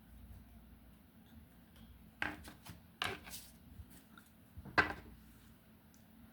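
Tarot cards being handled: a few short, sharp snaps and taps of the card deck, about two, three and five seconds in, over a faint steady hum.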